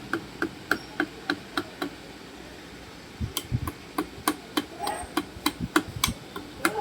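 Light clicks and a few dull knocks of hands working a desoldered amplifier IC loose from a circuit board; the clicks come evenly, about four a second.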